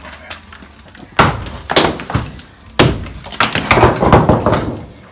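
Sledgehammer blows on a stone chimney: three heavy strikes, then about a second of stone and rubble crashing down.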